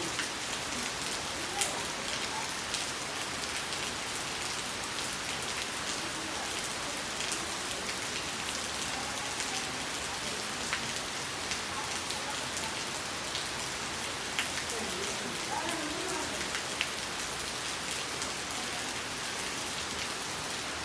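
Steady rain falling on puddled mud and leaves, an even hiss with a few sharper single drops ticking now and then.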